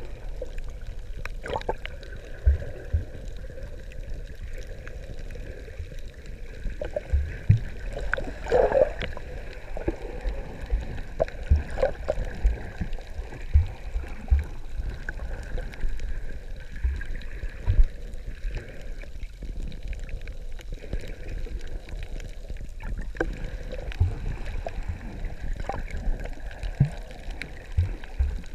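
Muffled underwater sound picked up by a camera held below the surface while snorkeling over a reef: a steady low rumble with irregular soft thumps and scattered clicks.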